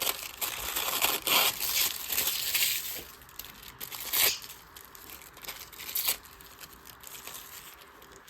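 Thin deli-paper gel prints being torn into strips and handled, crackling and crinkling. A dense run of tearing for the first few seconds, then lighter rustling with a few sharp crackles.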